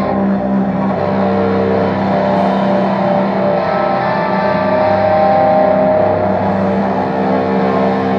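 Black metal band playing live: heavily distorted electric guitars and bass holding sustained, droning chords, with little sign of drum hits.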